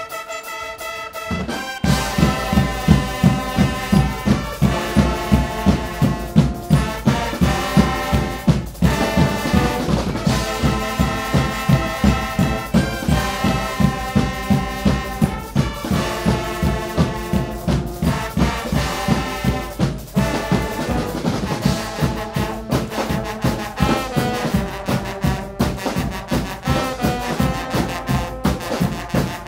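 Guggenmusik brass band playing live: trumpets, sousaphones and other brass over bass drums, snares and cymbals. The brass plays alone at first, and the drums come in with a steady beat about two seconds in.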